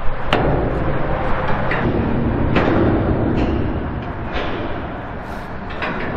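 A series of sharp knocks, about six over a few seconds, each ringing briefly, over a steady rumble.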